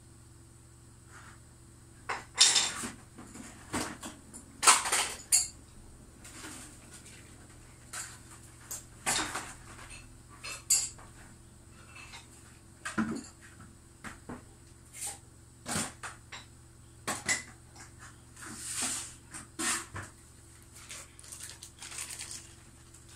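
Metal tools and small hard objects clattering and clinking as they are rummaged through and picked up, in irregular knocks, loudest about two and a half and five seconds in.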